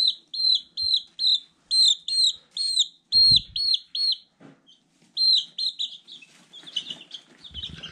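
Young chick peeping loudly over and over, two to three short falling peeps a second, with a brief pause about four seconds in and fainter peeps near the end. A soft low bump of handling about three seconds in.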